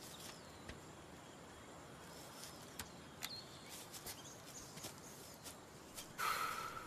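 Quiet outdoor ambience with faint bird chirps and a few small clicks, then a short, louder rush of noise near the end.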